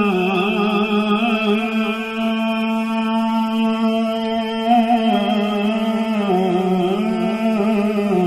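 A male voice chanting an Arabic nasheed, drawing out long sung notes with wavering ornaments and no clear words, holding one pitch steadily for a few seconds in the middle.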